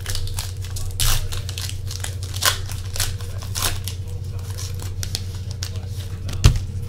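Foil wrapper of a trading-card pack being torn open and crinkled, the cards slid out of it, over a steady low hum. A single loud thump near the end.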